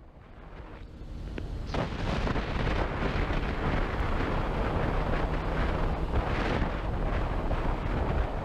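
Wind buffeting the microphone of a moving motorcycle, over the engine running and tyre noise. It fades in over the first two seconds, then holds steady.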